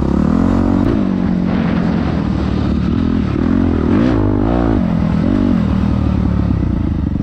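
Dirt bike engine ridden along a trail, revving up and dropping back several times as the throttle is worked, the pitch rising and falling.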